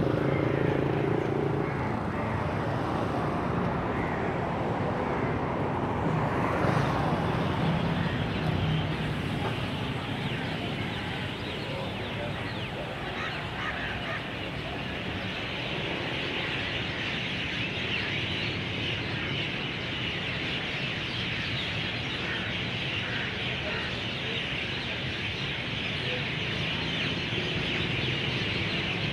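Many birds chirping and chattering over a steady low hum of city traffic; the chirping grows louder and denser about halfway through.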